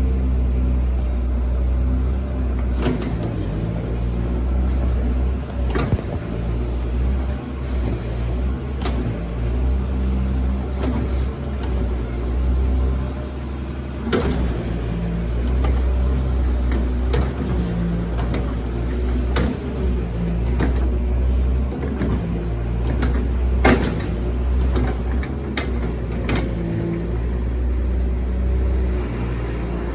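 Doosan 140 excavator's diesel engine running steadily under work, with irregular sharp knocks and clanks from the machine working a dozen or so times.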